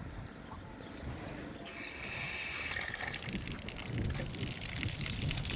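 Water gushing and hissing, starting about two seconds in and spreading into a dense splashing rush, over a low rumble.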